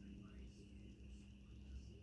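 Faint rural background: a steady high insect drone, like crickets, with a few faint chirps and a low rumble underneath.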